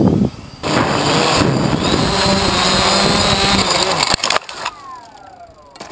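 Quadcopter's electric motors and propellers, loud and wind-buffeted through its onboard camera's microphone. About four seconds in come two sharp knocks, and then the motors wind down with a whine that falls steadily in pitch, as after a crash.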